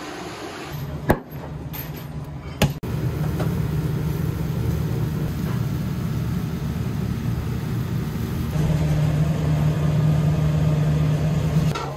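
Steady low mechanical hum of running kitchen equipment, with two sharp clicks in the first three seconds. The hum steps louder about three seconds in and again near nine seconds.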